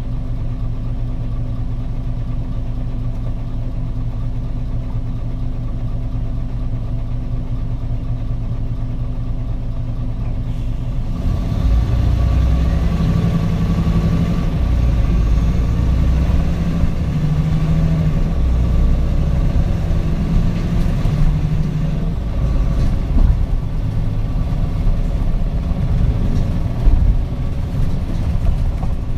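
Diesel engine of a 2008 PDG-RA273KAN low-floor city bus idling steadily, then about eleven seconds in the bus pulls away and accelerates, the engine working harder with rising rumble and road noise as it gets under way.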